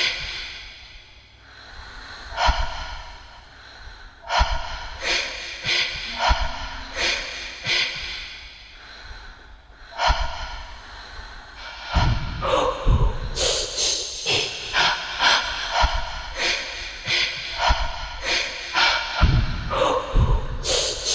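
Heavy human breathing in sharp gasps and exhalations, spaced irregularly at first, then coming about twice a second from about twelve seconds in, with a few deep thumps among them.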